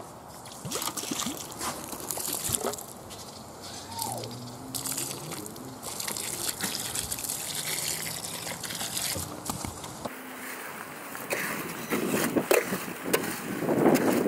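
Water from a garden hose pouring and splashing onto dry concrete mix in a wheelbarrow. About ten seconds in it gives way to a long-handled tool scraping and churning the wet concrete, the strokes getting louder toward the end.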